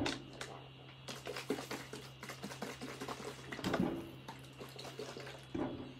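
Liquid sloshing inside plastic sensory bottles of water and baby oil, with the bottles knocking and clicking against a wooden table as they are handled and set down.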